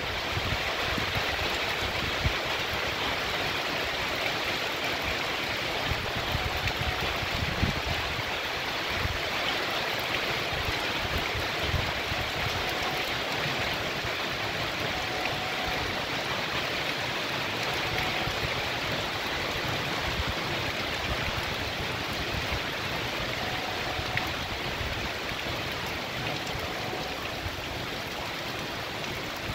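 Heavy rain pouring steadily, a dense, even hiss.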